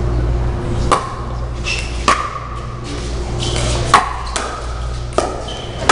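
Pickleball rally: about five sharp pops of the plastic ball off paddles, spaced a second or two apart, each with a brief ring, over a steady low hum.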